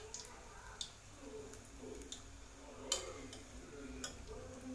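Pakodas deep-frying in hot oil in an aluminium kadai, with irregular sharp clicks of a metal skewer against the pan as the pieces are turned, the loudest about three seconds in.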